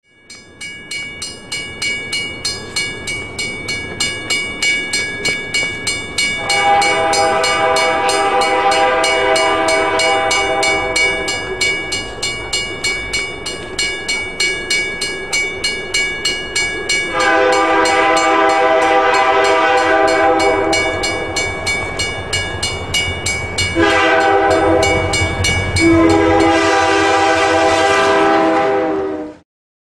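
Grade-crossing bell ringing about twice a second while a locomotive's multi-chime air horn sounds the crossing signal: long, long, short, long. The sound cuts off suddenly near the end.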